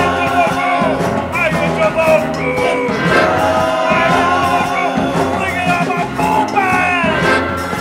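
Rock song with a singing voice over a full band, guitar included.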